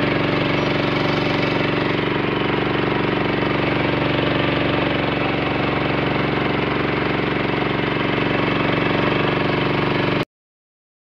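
Passenger boat's engine running at a steady pace, heard from aboard the covered cabin. The sound cuts off abruptly about ten seconds in.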